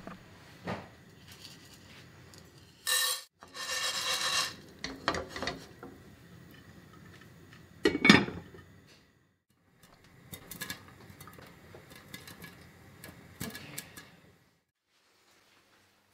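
Dry corn kernels pour and rattle into a nonstick frying pan, then a glass lid clanks down on the pan about eight seconds in, the loudest sound. Scattered clicks and light knocks follow.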